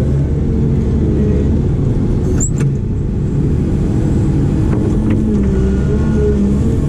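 Diesel engine of a heavy digging machine running steadily under load, its pitch shifting a little, with a sharp knock about two and a half seconds in.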